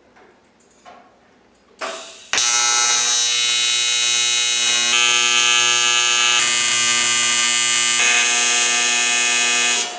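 AC TIG welding arc on aluminum: after a couple of faint knocks, the arc strikes about two seconds in and holds a loud, steady electric buzz, then cuts off sharply just before the end.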